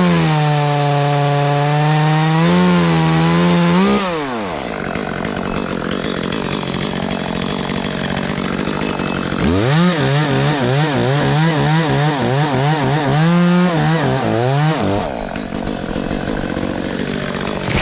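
Two-stroke chainsaw cutting into a queen palm trunk in two long bursts at full throttle, its pitch sagging and wavering as the chain bogs in the cut. The first burst lasts about four seconds and the second runs from about halfway in for some five seconds, with a quieter stretch of engine noise between them.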